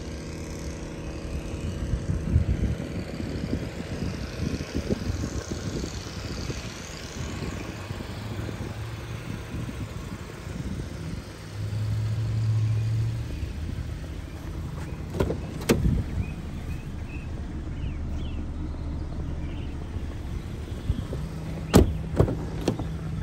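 Steady low rumble of motor vehicles and traffic, with gusts of wind on the microphone. A few sharp clicks near the end as a car door is opened.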